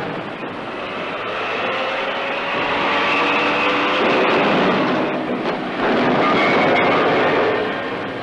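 Sherman tank on the move: its engine runs and its tracks clatter, with a few steady whining tones over the noise. It grows louder about six seconds in.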